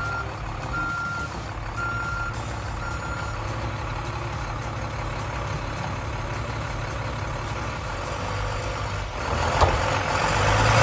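A heavy vehicle's reversing alarm beeps four times, about once a second, over a steadily running engine. The engine gets louder near the end.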